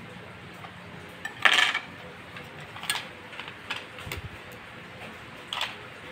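Short clicks and clinks of metal tweezers and hands working on a quartz table clock's metal case as its glass crystal is pried off and set down on a wooden table. A handful of separate clinks, the loudest and longest about a second and a half in.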